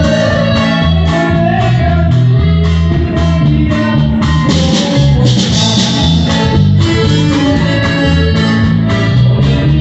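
Norteño music in an instrumental passage: plucked guitars carry the melody over bass and drums, with no singing.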